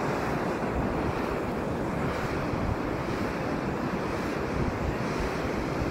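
Steady rush of wind and surf on a beach, with gusts buffeting the phone's microphone in a low, uneven rumble.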